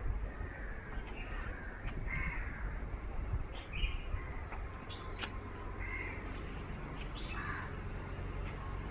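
Crows cawing, a string of short harsh calls spread over several seconds, over a steady low rumble.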